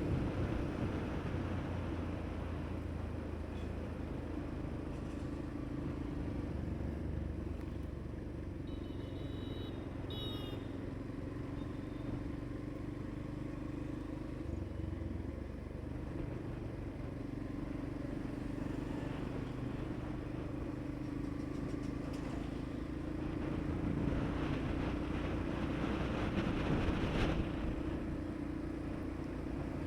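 Motorcycle engine running steadily while riding in traffic, its pitch drifting slowly with speed, with road and wind noise. A short high-pitched beeping sounds about nine seconds in.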